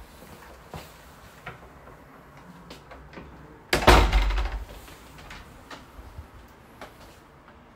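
A wood-veneer cupboard door being handled and opened, with light clicks and knocks and one heavy thud about four seconds in.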